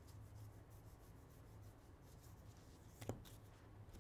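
Near silence: faint rubbing of trading cards being slid and handled, over a low steady hum, with a single sharp click about three seconds in.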